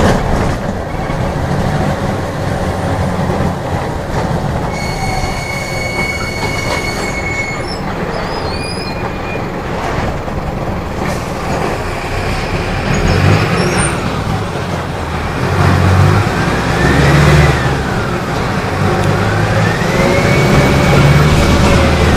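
Mercedes-Benz OF-1417 bus's OM-904LA four-cylinder turbodiesel running under way, a steady rumble that swells in surges from about halfway through as it pulls. A high steady whistle sounds for a few seconds early on, and later a high whine rises and falls in pitch twice.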